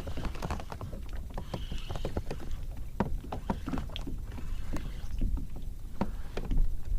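Irregular knocks and clicks of handling aboard a fishing kayak while a hooked fish is fought and reeled in, over a low steady rumble.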